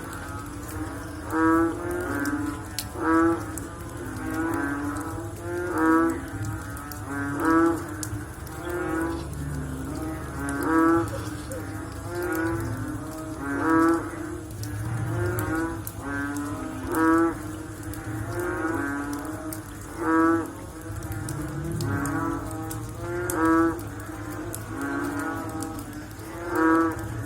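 A chorus of frogs croaking after rain: several low, moo-like pulsed calls overlapping, with the loudest caller repeating every one and a half to two seconds.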